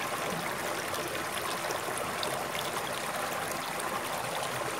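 Shallow creek running over rocks and stones: a steady sound of flowing water.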